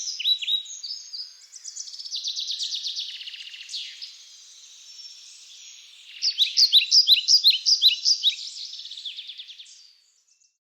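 Songbirds chirping and singing: many quick, high, descending chirps overlapping, with a rapid trill about two seconds in and a louder run of chirps near the end, then the sound cuts off suddenly.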